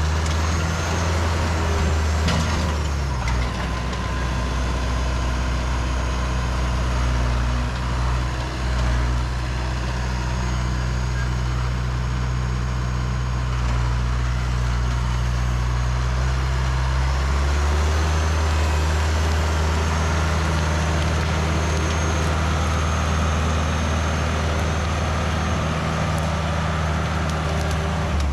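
Tractor engine running steadily, its speed shifting about three seconds in and again about seventeen seconds in.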